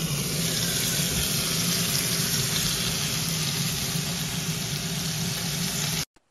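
Hamburg steak patties sizzling and bubbling in a pan of sauce: a dense, steady frying hiss over a low hum. It cuts off suddenly near the end.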